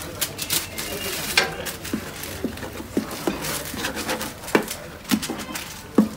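Flat metal spatula scraping and knocking against a large round metal knefeh tray while cutting and lifting the cheese knefeh: irregular short taps and scrapes, about one or two a second.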